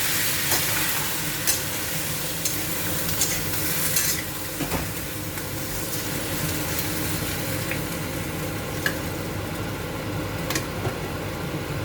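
Pan of chicken, potato and onion sizzling just after a little water has gone in, with a utensil stirring and clicking against the pan now and then. The hiss is strongest at first and eases slightly.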